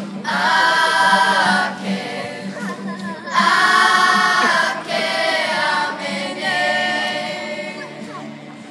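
Children's kapa haka group singing a Māori waiata together in about four long held phrases, growing quieter near the end.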